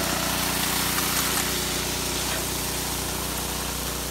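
Small gasoline-powered water pump engine running steadily, with water rushing through the highbanker.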